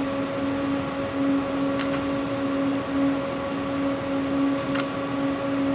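Steady machine hum from a CT scanner, a low tone that pulses slightly, with two faint clicks about two and five seconds in.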